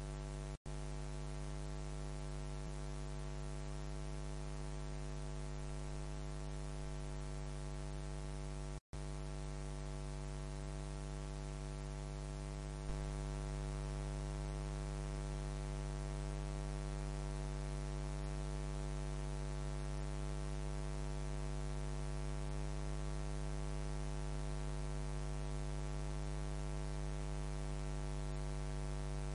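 Steady electrical mains hum with a stack of buzzing overtones and a faint hiss beneath it. The signal cuts out completely for a moment twice, just after the start and near nine seconds in, and the hum gets slightly louder at about thirteen seconds.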